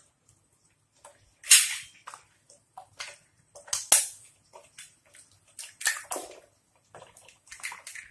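Eggs cracked one after another into hot oil in a frying pan: a sharp crack of shell, then a short splatter as the egg lands, about four times, roughly every two seconds.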